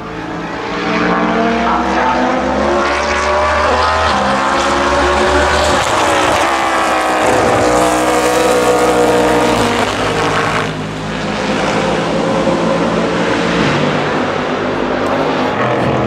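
NASCAR Next Gen Chevrolet Camaro ZL1's V8 at racing speed alongside a prototype race car, both passing close by. The engine note rises as they approach and drops away suddenly about ten and a half seconds in, as they go past.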